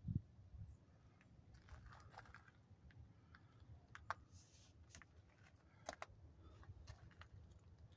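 Near silence with a low rumble and a few faint, scattered clicks and taps, handling noise from the phone being moved around.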